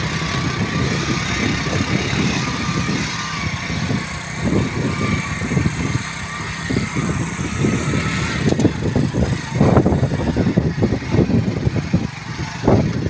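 Small Honda motorcycle's engine running as it is ridden along, with irregular wind buffeting on the microphone.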